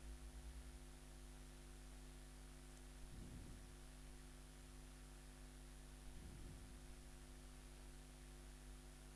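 Near silence: a steady electrical mains hum with hiss, and faint short low sounds about three and six seconds in.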